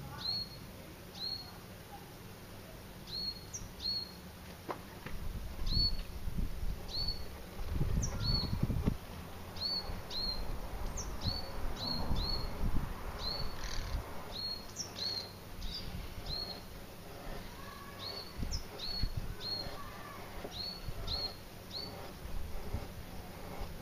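A bird repeats a short, high chirp about once or twice a second throughout, over the scraping strokes of a carbon-steel bushcraft knife shaving down a green wood stick and a few low rumbles.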